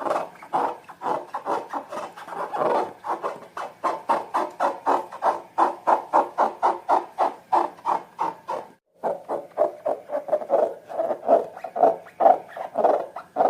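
Slime being squeezed and kneaded by hand, a fast run of wet, sticky squelches at about four or five a second, breaking off very briefly about nine seconds in.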